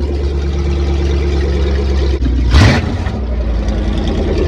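Truck engine idling loud through an open exhaust, its Flowmaster mufflers ripped out. About two and a half seconds in, it gives one quick rev that rises and drops back to idle.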